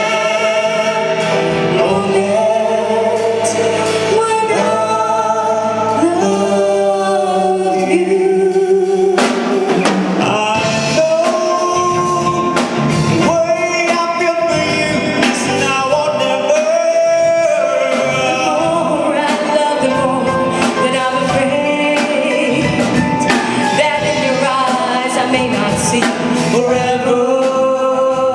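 Live band playing a song from a medley of English duets, with sung vocals over the instruments.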